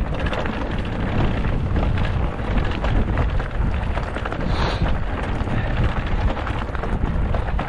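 Wind buffeting a handlebar-mounted camera's microphone as a bike rides over a rough trail, with a dense rumble and continual small rattles and knocks from the ground.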